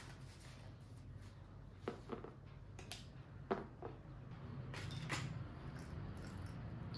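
A few small clicks and taps of fountain pen parts being handled and set down on a glass tabletop, the sharpest about three and a half seconds in, with a brief rustle near five seconds, over a low steady hum.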